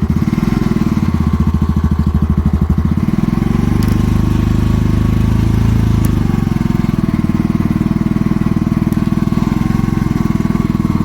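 Honda Fourtrax TRX200D ATV's single-cylinder four-stroke engine running just after starting, pulsing roughly at first and settling to a steadier, slightly higher note about three seconds in. The engine needs its choke to keep running, and the choke knob creeps closed by itself from vibration.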